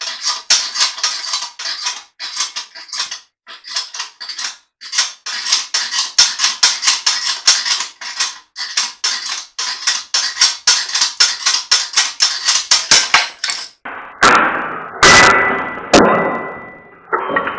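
Rapid metallic clicking, about four or five a second, as load is cranked onto a 3D-printed test block in shear. About three-quarters of the way through the clicking stops, and a few loud cracks and snaps follow as the printed block fails.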